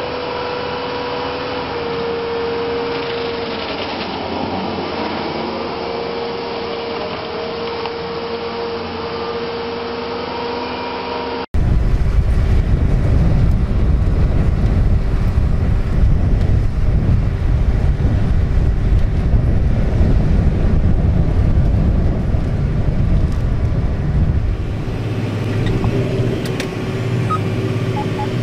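A firewood processor running, a steady machine whine as it saws and splits logs. After an abrupt cut about eleven seconds in, a large tractor's engine pulls a disc harrow through the field, a louder, heavy low rumble.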